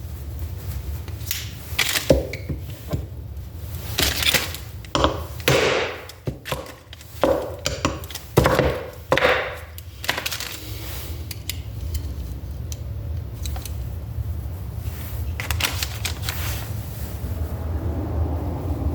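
A series of sharp, irregular knocks from about a second in until about halfway through, typical of a part being driven down into place on a Toyota 4A-FE distributor. A steady low hum runs underneath.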